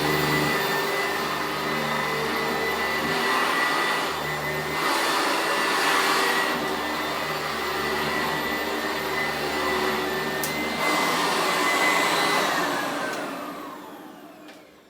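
Sanitaire SC889A upright vacuum cleaner running with a steady high motor whine, a lower hum coming and going every couple of seconds. Near the end it is switched off, and the whine falls in pitch and fades as the motor spins down.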